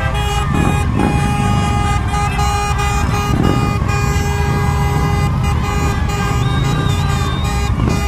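Motorcycles riding past in a column with a continuous low engine rumble, overlaid by several steady held tones.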